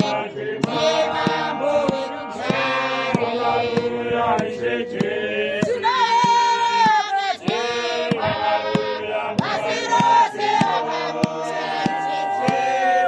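Church congregation singing a hymn together, men's and women's voices in chorus holding long sustained notes.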